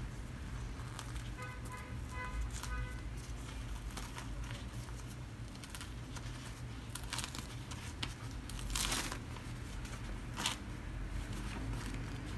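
Thin lumpia wrappers being peeled apart by hand on a wooden board, giving soft papery rustles and crinkles. A longer, louder rustle comes about nine seconds in.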